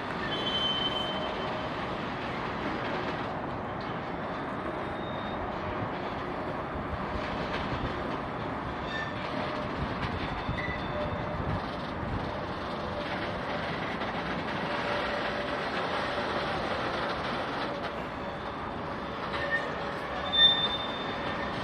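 Freight cars rolling through a hump yard: a steady metallic rolling rumble, with thin high-pitched wheel squeals coming and going and one short, sharp squeal near the end.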